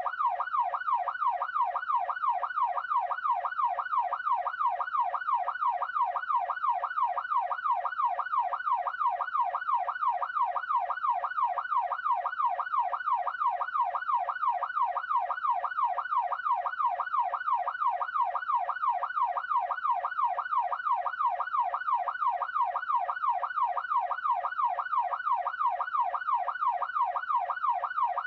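Police siren on its fast yelp setting, its pitch sweeping up and down about twice a second in an unbroken, even cycle.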